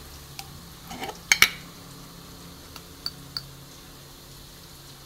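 A few light clicks and clinks of kitchenware, the two sharpest about a second and a half in, with fainter ticks around three seconds, over a faint steady hum.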